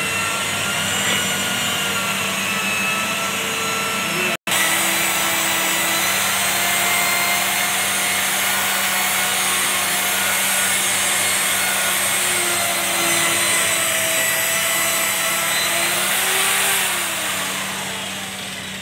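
Electric rotary polisher with a foam pad running on a car's painted bonnet, polishing the paint: a steady motor whine whose tones shift slightly as it is worked over the panel. The sound cuts out for an instant about four seconds in, and near the end the motor slows and quietens.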